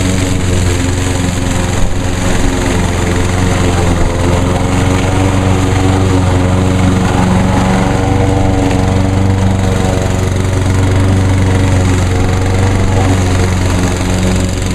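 Walk-behind Craftsman lawn mower's small single-cylinder engine running steadily, its pitch wavering slightly about halfway through.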